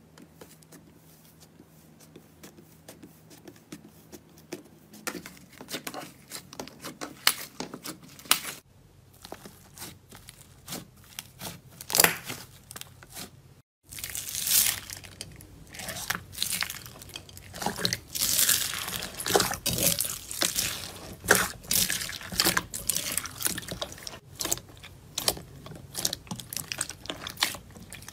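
Slime squished and pressed by hand: faint at first, then scattered wet, sticky clicks. After a brief break about halfway through, a hand presses into foam beads and pink slime, giving dense, louder crunchy crackling and popping.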